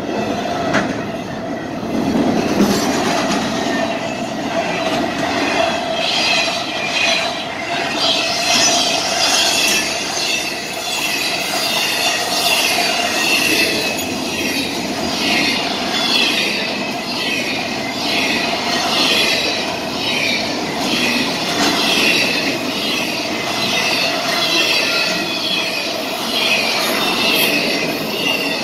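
Intermodal freight train's loaded well cars rolling past at close range: steel wheels clattering over the rail joints in a repeating rhythm, with a steady high whine from the wheels on the rails.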